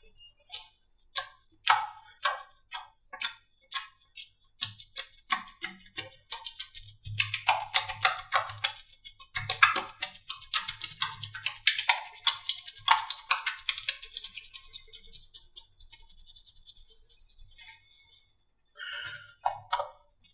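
Slime being squeezed and poked by hand, giving quick runs of sticky clicks and pops that briefly stop near the end.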